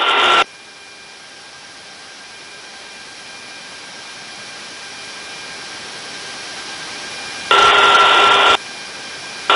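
Marine-band VHF radio receiver hissing with band-limited static, a telephone-like rush, between calls. A short burst comes as the last transmission ends, then a faint steady hiss, and a second burst of about a second comes near the end.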